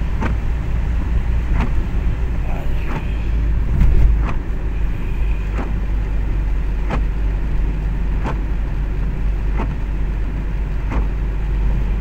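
Steady low rumble of a car's engine and tyres on a wet road, heard from inside the cabin, briefly louder about four seconds in. A short tick repeats evenly about every second and a third throughout.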